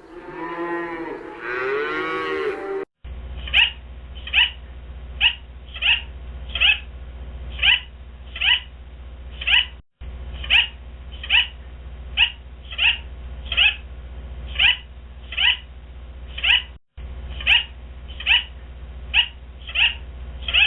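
A cow moos for about the first three seconds. Then comes a long run of short, high, falling peeps, a little more than one a second, over a steady low hum, broken twice by brief cuts.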